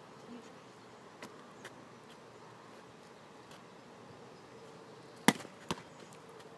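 A hand strikes a volleyball once with a sharp smack about five seconds in. A softer thump follows less than half a second later as the ball is caught. Otherwise there is only faint, steady outdoor background.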